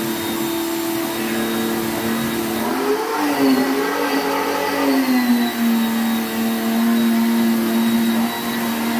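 Pressure washer motor running steadily with a humming pitch, which rises about three seconds in and drops back just after five seconds as the load changes while it sprays.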